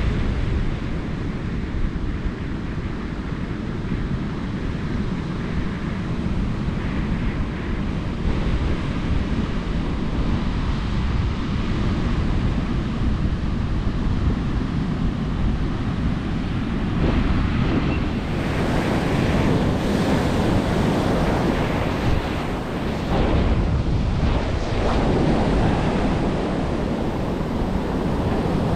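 Wind buffeting the microphone over ocean surf. About seventeen seconds in, the breaking waves and their wash grow louder and fuller, coming in surges.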